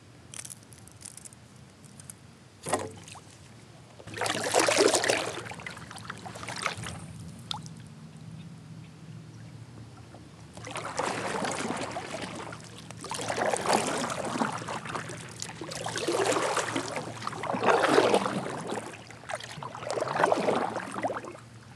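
Kayak paddle strokes: the blade dipping in and pulling through calm water with a splash and drip. One stroke comes about four seconds in, then a steady run of five strokes about every two seconds through the second half, after a single sharp knock early on.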